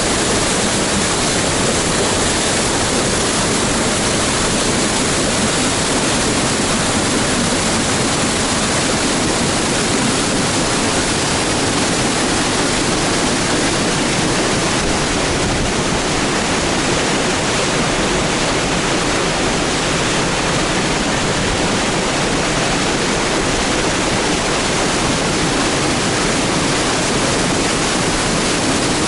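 Spring waterfall on the Pryamaya River: a steady, loud rush of falling water that does not change.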